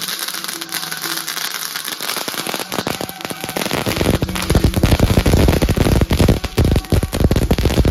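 A string of firecrackers going off in a rapid, continuous crackle that grows louder and heavier about four seconds in.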